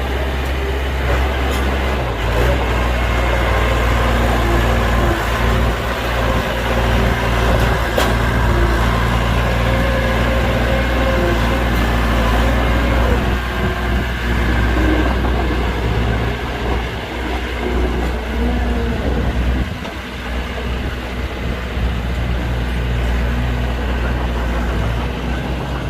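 Heavy diesel construction machinery running steadily, with a deep engine hum that dips briefly about twenty seconds in.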